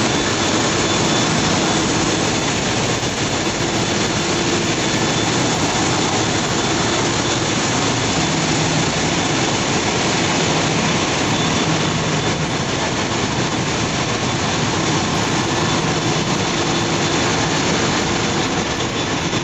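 Loud, steady machinery din of a ship's engine room with the large marine main diesel engine running, a faint steady hum under the noise.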